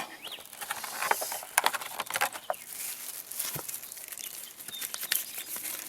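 Rustling and irregular clicks of packaging and the pistol being handled during an unboxing.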